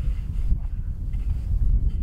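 Wind buffeting the microphone outdoors: a low, gusty rumble.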